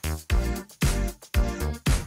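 Background music with a steady electronic dance beat.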